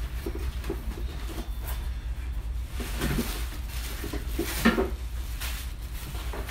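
Plastic bags crinkling and parts knocking as steamer accessories are lifted out of a cardboard box, in scattered short sounds with the loudest knock near the end.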